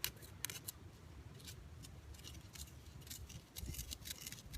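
A stick scraping and scratching against the charred inside of a burned-out wooden cup, stirring charcoal into sticky pine pitch: faint, irregular short scrapes and clicks, several a second.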